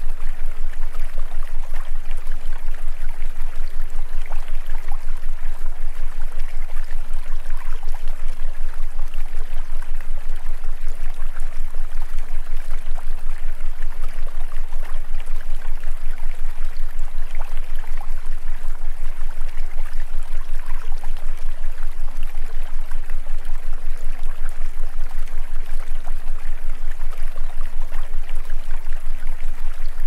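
Steady rushing noise like a flowing stream, over a steady low hum.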